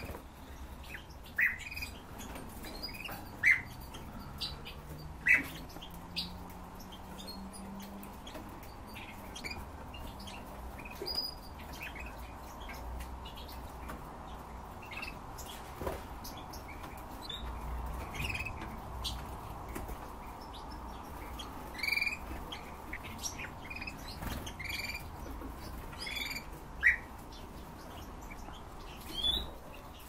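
Caged finches giving short, sharp single call notes, one every second or two, with a louder cluster of chirps near the end, over a steady low background hum.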